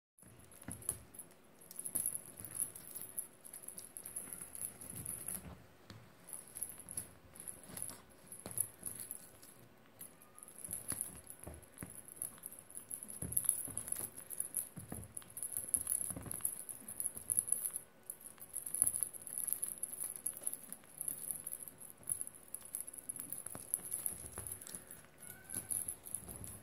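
Exotic shorthair kitten's paws pattering and scrabbling on a quilted bedspread as it pounces on a wand toy. Irregular soft thumps and scuffles, with rustling and rattling from the toy.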